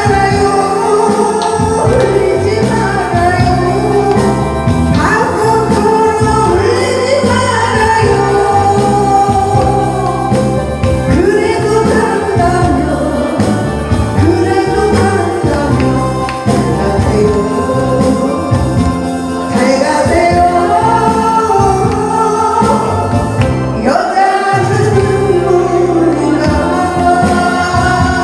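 A woman singing a Korean trot song over a loud backing track with a steady beat, her voice wavering with vibrato on held notes.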